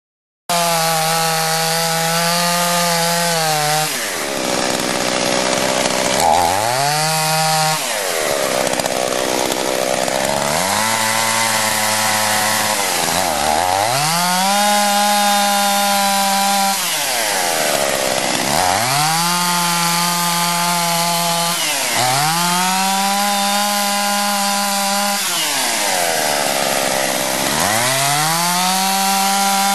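Two-stroke chainsaw cutting into ice, its engine pitch sagging under load and climbing back every few seconds.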